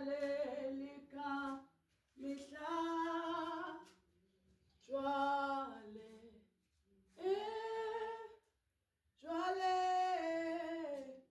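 A woman singing unaccompanied, in about five held phrases of one to two seconds each with short pauses between them.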